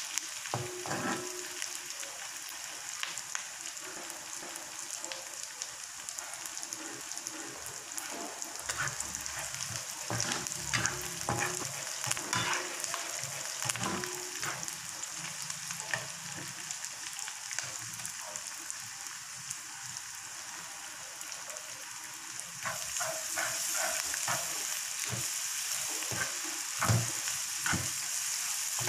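Food frying in hot oil in a pan, sizzling steadily while a utensil stirs and scrapes in irregular clicks and knocks. The sizzle grows louder about three-quarters of the way through, and there is one sharper knock near the end.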